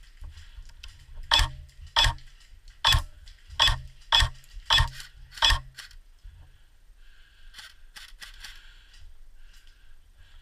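Seven single shots from an airsoft gun, sharp cracks each with a low thump, fired about half a second to a second apart. A few fainter clicks follow about two seconds later.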